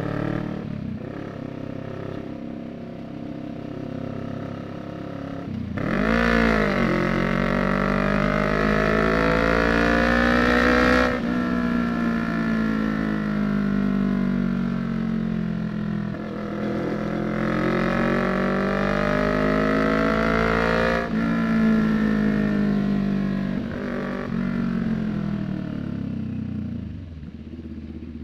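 CFMoto 400NK's 400cc parallel-twin engine through an SC-Project slip-on muffler run without its silencer, loud and open: ticking over at low revs, then about six seconds in the throttle opens hard and the revs climb. The pitch drops sharply about eleven and twenty-one seconds in as it shifts up and climbs again, then the revs fall away and settle lower near the end.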